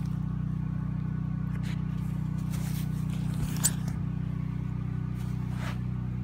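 A steady low machine hum, like an engine running, with light handling and scuffing noises and one sharp click a little past the middle.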